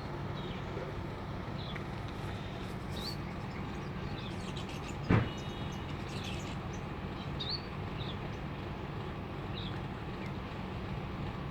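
Steady mechanical hum of an air conditioner unit running. Faint short bird chirps are scattered through it, and there is one sharp knock about five seconds in.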